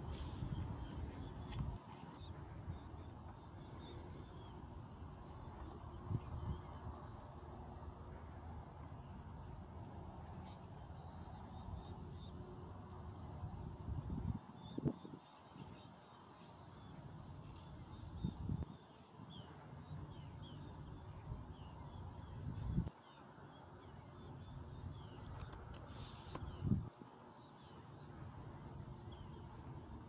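Insects trilling in one steady, high-pitched drone, with a few low thumps every few seconds.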